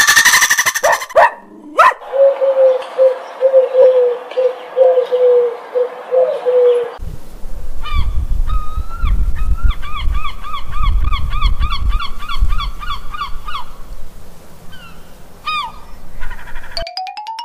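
Comic 'laughing' sound effects dubbed over the picture: a string of honking, goose-like cries, then a quick run of high squeaky cries at about four a second, ending in a rising glide.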